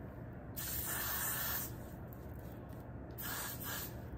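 Got2b Glued aerosol hairspray hissing from the can in two bursts: one about a second long near the start, and a shorter one near the end, sprayed onto the hair to hold a freshly made top knot in place.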